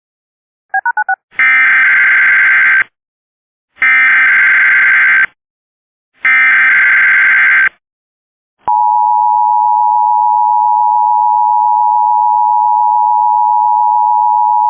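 Emergency Alert System Required Monthly Test signal. A few quick beeps are followed by three buzzing data bursts of the SAME header, each about a second and a half long. A steady attention tone then comes in about nine seconds in and holds.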